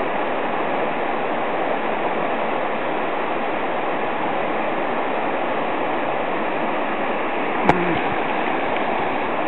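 Steady rush of a swollen mountain stream running high. A single short knock about three-quarters of the way through.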